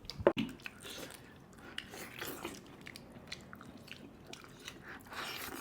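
A person chewing and biting into cooked mutton, with scattered small wet clicks and smacks and a sharper click just after the start.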